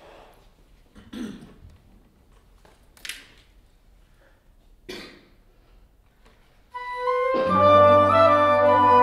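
A few brief, faint noises in a quiet room, then about seven seconds in an instrumental ensemble comes in loudly, playing sustained chords.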